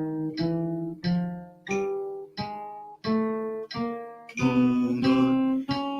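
Acoustic guitar playing single picked notes one after another in a fingering exercise, each note ringing clearly and dying away before the next, with the pitch stepping from note to note.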